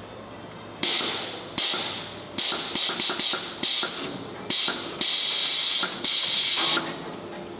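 A pneumatic tool run in a string of short bursts, each starting sharply with a loud hiss, the last two held for about a second each.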